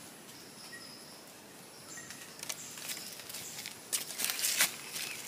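Dry forest leaf litter rustling and crackling as it is disturbed. Irregular crackles start about two seconds in and build to a dense, loudest flurry near the end.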